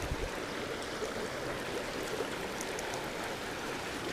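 Steady rush of a small creek's flowing water, with a couple of low thumps right at the start.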